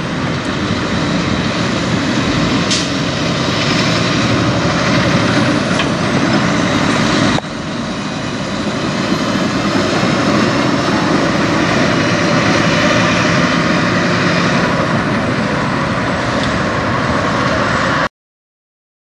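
Peterbilt 389 semi truck's diesel engine running as it pulls a loaded flatbed trailer past, with tyre and road noise. The sound breaks off sharply about seven seconds in and comes back quieter, building up again, then cuts off abruptly near the end.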